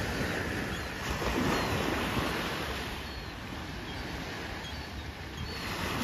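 Small waves breaking and washing up a sandy shore, swelling about a second in and easing off, with some wind rumble on the microphone.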